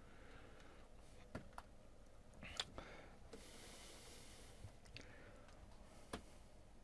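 Near silence broken by a few faint, sharp clicks and taps of hands handling things on a workbench, the loudest about two and a half seconds in, with a soft hiss like a breath around the middle.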